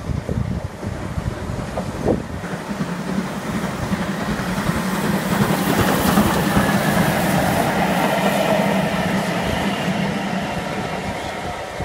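LNER B1 4-6-0 steam locomotive 61306 Mayflower and its coaches passing at speed, the rumble of wheels on rail with some clickety-clack. It grows to its loudest about six seconds in as the engine goes by, then fades as the coaches pass and draw away.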